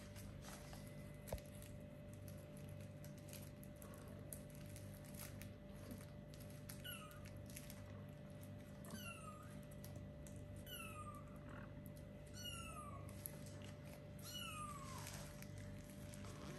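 Four-week-old kittens mewing: five short, high mews that fall in pitch, about two seconds apart, starting about seven seconds in. Faint clicks and scratches come before them, over a faint steady hum.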